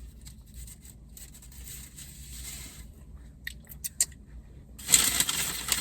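Fast-food packaging being handled: faint rustling and a few sharp clicks, then loud paper crinkling from about five seconds in as the nugget box is brought out and opened.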